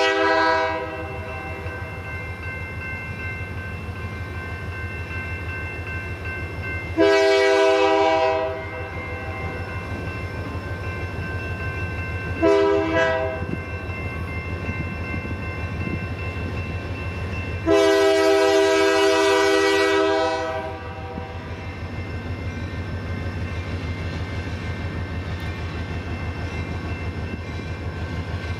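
Diesel locomotive's air horn sounding the grade-crossing signal: one blast ending about a second in, then a long blast, a short one and a final long one of about three seconds, over the steady running of the locomotive's diesel engine.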